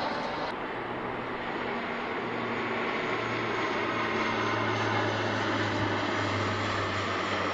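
Airliner on approach, its engines giving a steady loud rush of noise with a constant low hum underneath.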